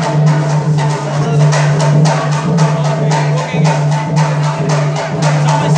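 Tharu stick dance: wooden sticks clacking together in a fast, steady rhythm over a barrel-shaped hand drum.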